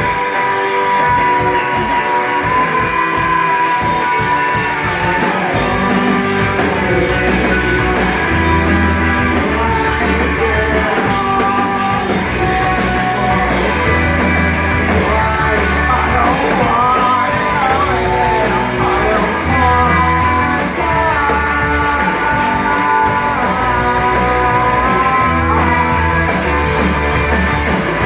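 A live band playing a rock song, with guitar and a melody line over it; a low bass part comes in about six seconds in.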